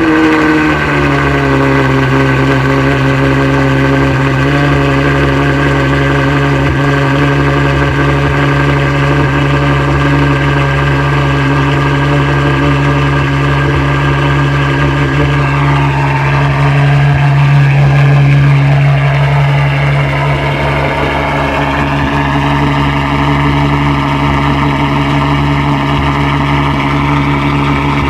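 Ferrari F12's V12 engine, breathing through a titanium Valvetronic Designs valved exhaust, settling from its start-up flare into a steady idle.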